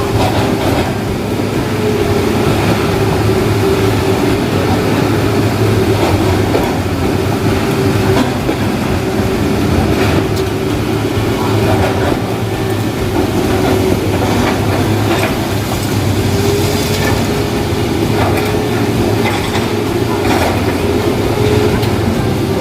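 Excavator-mounted hydraulic breaker hammering rock, a fast continuous rattle of blows over the steady drone of the excavator's engine and hydraulics.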